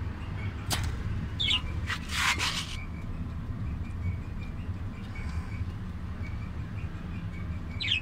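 Budgerigars giving a few short chirps, over a steady low hum. There is a sharp click just under a second in and a short rustle about two seconds in.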